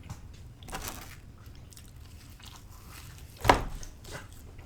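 Close-miked eating of pizza: quiet chewing, with one sharp, loud crunch about three and a half seconds in.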